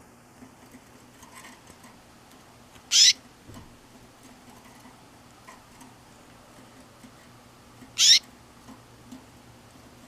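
Male canary giving two short, loud call notes about five seconds apart, each a quick downward-sliding chirp, rather than song. A faint steady hum lies underneath.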